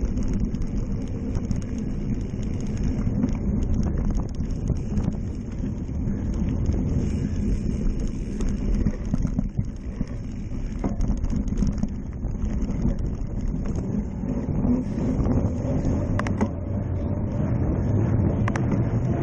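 Wind buffeting the microphone of a camera on a cyclocross bike, with the steady rumble of the tyres over dirt and then pavement. A few sharp knocks sound near the end.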